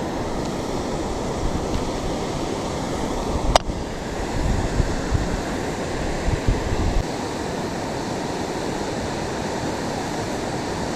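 Steady rush of a river waterfall, with a single sharp click about a third of the way in and low gusts of wind rumbling on the microphone shortly after.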